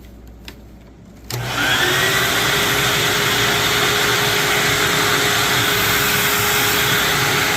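Hoover WindTunnel upright vacuum switched on with a click about a second in, its motor spinning up with a rising whine and then running steadily, brush roll engaged.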